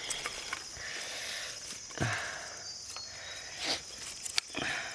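Steady high-pitched insect chorus, with a few short, sharp noises about two seconds in and again near the end.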